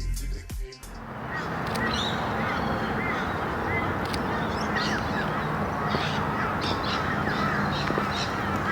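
A large flock of birds calling all at once, a dense chorus of chirps and harsh calls, coming in just under a second in as background music cuts off.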